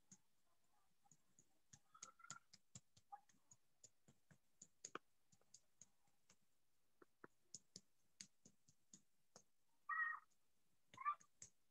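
Faint, light fingertip taps on skin, scattered irregularly at about two or three a second, with two brief louder noises near the end.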